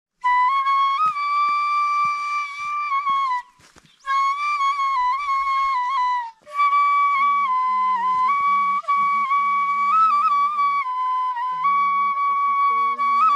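Music: a flute playing a slow melody of long held notes with small turns, in three phrases with short breaks about three and a half and six and a half seconds in. A lower second part joins about seven seconds in.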